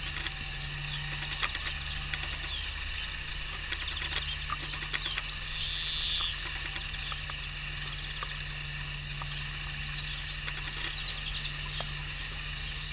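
A ewe grazing close by, tearing and chewing grass with irregular soft clicks and crunches, over a steady low hum. A brief higher hiss about six seconds in.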